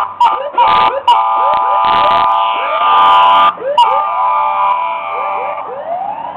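Fire engine sirens yelping in quick rising sweeps, overlapped by long, steady air horn blasts, loudest from about one to three and a half seconds in; the horns fade away and the sirens carry on.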